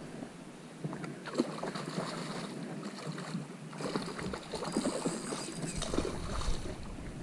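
Stream water running and splashing, with irregular small splashes and knocks that grow busier about four seconds in.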